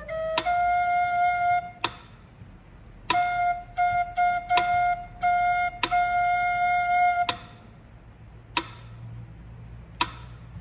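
Thai khlui flute playing held notes, mostly on one repeated pitch, over a small hand cymbal struck about every one and a half seconds with a long bright ring. The flute phrase ends about seven seconds in, and the cymbal strikes carry on alone.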